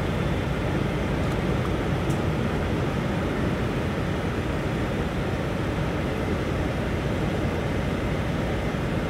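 Steady low rumble of idling diesel truck engines, unchanging throughout.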